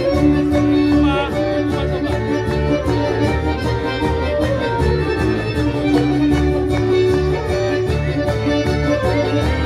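Music with a steady beat and long held melody notes.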